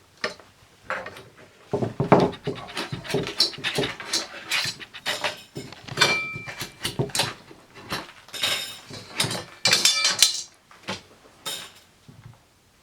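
Irregular clattering, knocking and scraping of hard objects being handled, busiest from about two seconds in until near the end, with a brief high squeak about six seconds in.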